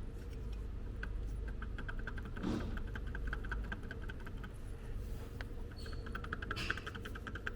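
Water pump of a SsangYong Rexton diesel, its pulley turned by hand, giving a rapid run of light ticks from the bearing: the bearing has play in it.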